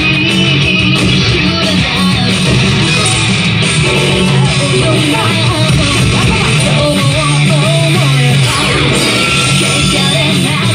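Loud rock song with electric guitar and a singing voice, played by a pachislot machine's speakers as part of its game soundtrack.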